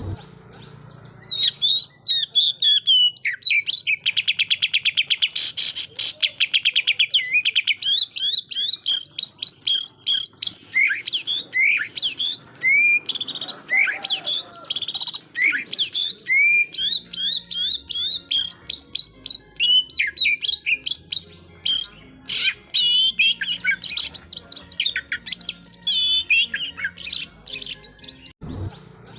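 Oriental magpie-robin singing a long, varied song of loud whistled notes and slurs, broken twice by long rapid-fire trills, the burst of notes fanciers call "tembakan" (shooting).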